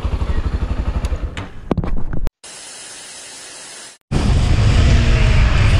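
Motorcycle engine idling with an even pulsing beat and a few clicks. It cuts off abruptly about two seconds in, giving way to a steady hiss. About four seconds in the motorcycle is riding along, with loud wind rush over a helmet-mounted microphone and the engine running underneath.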